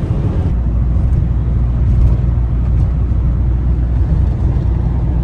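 Steady low rumble of a van driving at highway speed, heard from inside the cab: engine and road noise.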